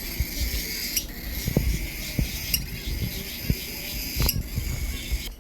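A dense, steady chorus of high-pitched chirping from many small animals, with a few soft bumps and sharp clicks.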